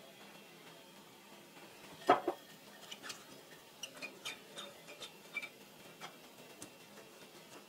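Kitchen dishware being handled: a sharp double knock about two seconds in, then a string of light clicks and clinks of dishes over the next few seconds.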